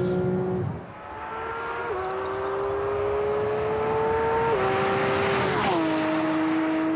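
Porsche 911 GT3 RS's naturally aspirated 4.0-litre flat-six accelerating hard. The engine note climbs in pitch and drops sharply at gear changes about two, four and a half and nearly six seconds in.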